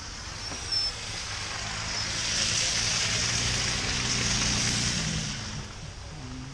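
Pickup truck engine idling with a low steady hum, while a hissing rush swells up about two seconds in and fades away near the end; a brief high squeak sounds about a second in.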